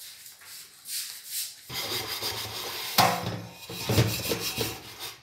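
Scrubber rubbing and scraping on a burnt pressure cooker, scouring off burnt-on residue. It is faint at first, then turns into denser back-and-forth strokes from about two seconds in.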